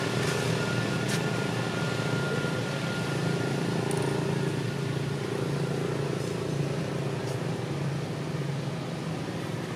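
A vehicle engine running steadily, a low hum with a thin high whine that fades out in the first few seconds.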